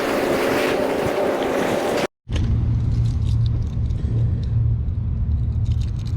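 Wind and surf noise for about two seconds, then, after an abrupt cut, the steady low drone of a running engine with a few faint clicks.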